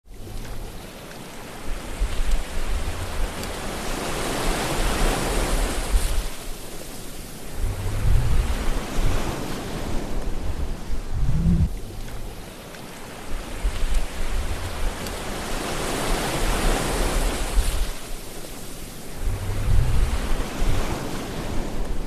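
Sea waves washing onto a shore: a steady hiss of surf that swells and falls back every few seconds, with a low rumble as each wave breaks.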